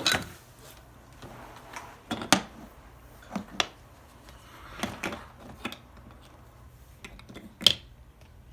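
Scattered sharp clicks and knocks of wooden Brio toy train pieces being handled, about eight light knocks at uneven intervals, the loudest near the end.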